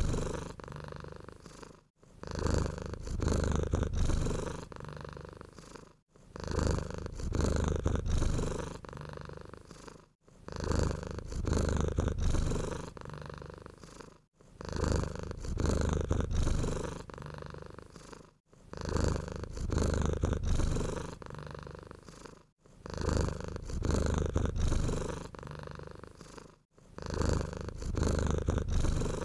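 Domestic cat purring close up, in a steady cycle of a louder stretch and a softer one that repeats about every four seconds, each cycle ending in a brief pause.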